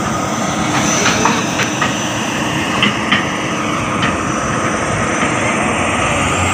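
Heavy machinery's diesel engine running steadily, with a faint steady whine over the rumble and a few light clicks.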